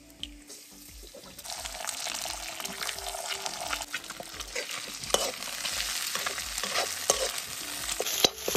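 Eggs cracked into a hot iron wok start to sizzle and fry about a second and a half in, with a metal spatula scraping and stirring. The frying grows louder near the end.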